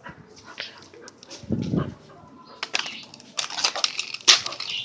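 Pit bull dog at play: a short, low sound from the dog about a second and a half in, then a stretch of scuffling and clattering noise with sharp clicks.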